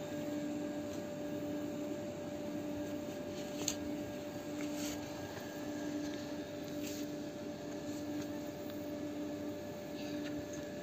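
Steady machine hum with one held tone and a lower tone that pulses on and off about once a second, over a faint hiss, with a few light clicks.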